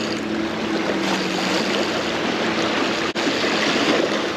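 Shallow seawater washing and lapping over the rocks at the shoreline, a steady hiss of water. Under it a boat's motor drones in the background, its hum sinking slightly in pitch over the first couple of seconds.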